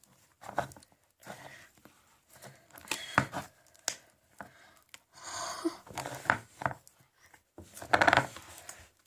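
Slime being kneaded by hand as clay is mixed into it: irregular sticky squishes and crackles in short bursts, loudest about eight seconds in.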